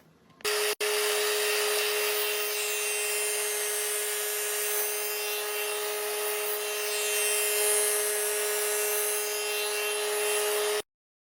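Power tool running at a steady speed, switched on with a brief blip and then held for about ten seconds before cutting off suddenly.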